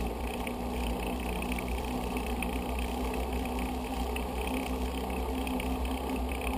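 Steady wind rumble on the microphone and tyre noise from a bicycle riding along a paved road, with a faint steady hum.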